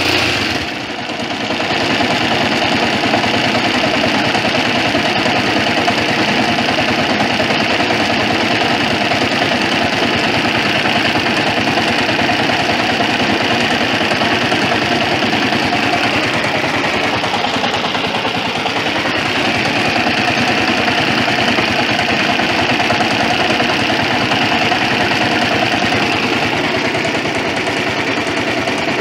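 200cc engine running steadily at idle. Its level dips briefly about a second in, then holds steady.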